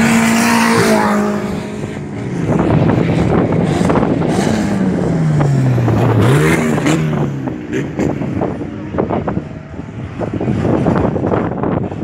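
Race car engines on a dirt track: a small hatchback's engine held at high revs as it passes close, its note then falling away. About six seconds in, an engine note slides down and then climbs sharply again as a car lifts off and accelerates out of the corner.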